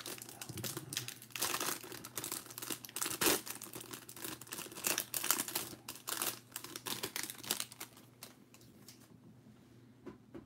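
Crinkly plastic wrapper of a trading card pack being torn open and crumpled while the cards are pulled out, with a sharp crackle a little past three seconds in. The crinkling stops about eight or nine seconds in.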